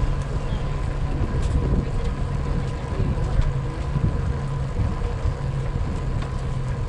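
Wind buffeting the camera's microphone on an open, high bridge: a steady low rumble with no distinct events.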